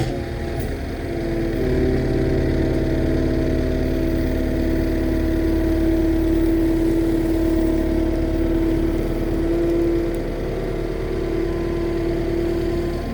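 A vehicle engine running at a steady speed.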